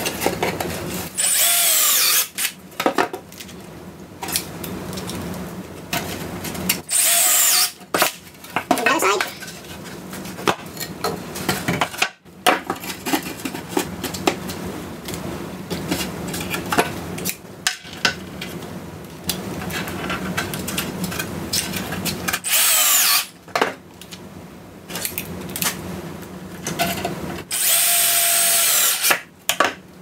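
Cordless drill driving 1 5/8-inch star-head deck screws into plywood framing: four bursts of the motor winding up, each a second or two long, as each screw is run in.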